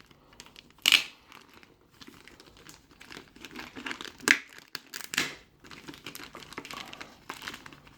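Plastic packaging being handled and pulled at while unboxing, crinkling and rustling in irregular sharp crackles, the loudest about a second in and again about four and five seconds in.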